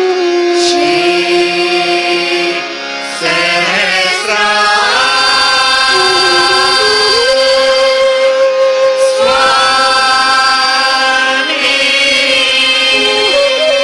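Devotional hymn singing, voices holding long notes with gliding changes in pitch, in the style of a Sahaja Yoga aarti or mantra chant.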